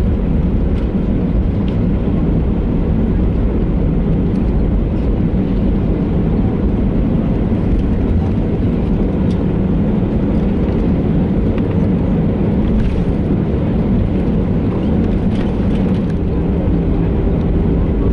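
Steady low rumble of an Airbus A320 taxiing, its CFM56 turbofan engines at idle, heard inside the passenger cabin.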